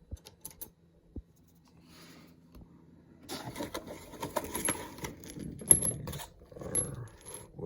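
Small metal parts clinking and rattling while being handled, with rustling, starting about three seconds in and ringing sharply a few times.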